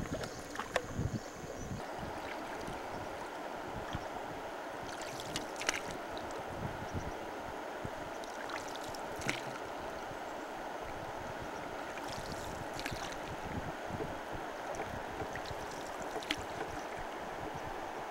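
Steady rush of river water flowing past a small boat, with a few short sharp sounds every few seconds.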